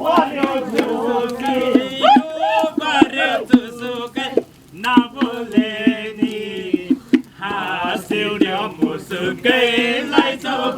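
A group of voices, men's voices most prominent, singing together in a chant-like song, with frequent sharp percussive strikes keeping a beat.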